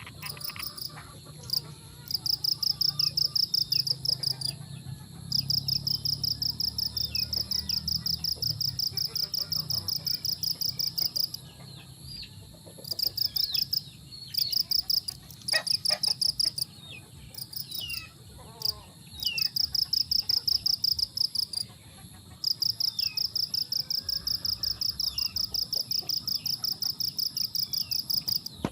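Insects trilling in fast, evenly pulsed bursts of several seconds each with short breaks between, over scattered short, falling bird chirps. A low wind rumble sits under the first several seconds.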